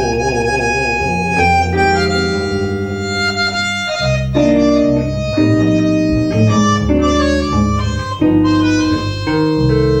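Tango ensemble playing an instrumental passage: a bandoneón carries the melody in held reedy notes over bass and guitar, after a held note with vibrato ends about a second in.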